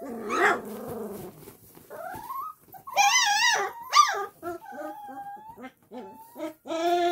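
20-day-old Great Dane puppies whining and squealing. There is a series of short rising whines, a loud wavering cry about three seconds in, and another cry near the end.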